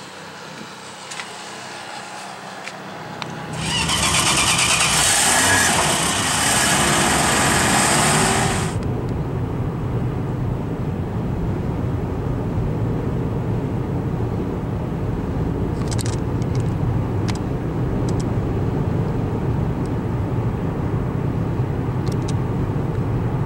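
Steady low road and engine rumble inside a moving car, with a loud rushing hiss over it for about five seconds early in the drive and a few faint ticks later.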